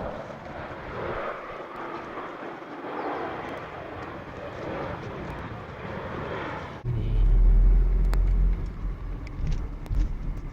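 Steady vehicle running noise. About seven seconds in it changes abruptly to a much louder deep rumble with a few sharp clicks.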